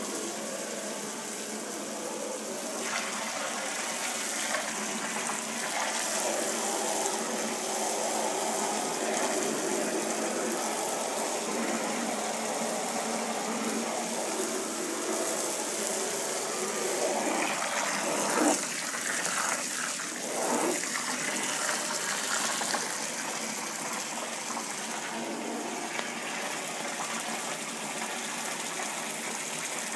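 Water running steadily, a continuous rush of flow through an instant water heater's outlet. A few brief knocks come a little past the middle.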